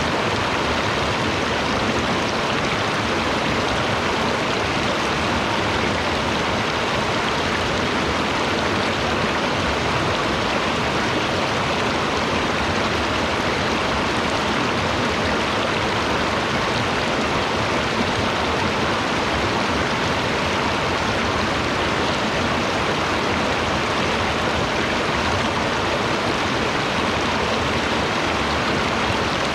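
Stream water flowing steadily, an even rush with no breaks or separate splashes.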